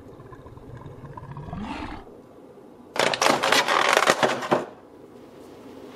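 A lion roar sound effect that rises and ends about two seconds in, followed by a loud crinkling crackle of a clear plastic blister tray being handled, about a second and a half long.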